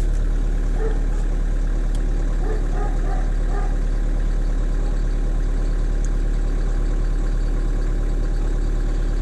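Skoda Octavia 1.6 TDI four-cylinder common-rail diesel idling steadily, still cold after a cold start.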